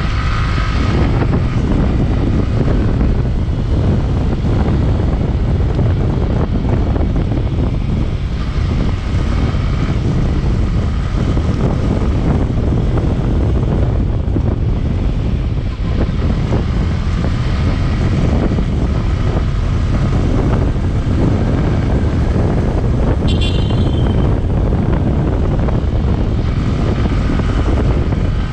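Yamaha R15 V3's single-cylinder engine running on the move, heard under heavy wind rumble on the microphone. A short high-pitched beep sounds late on.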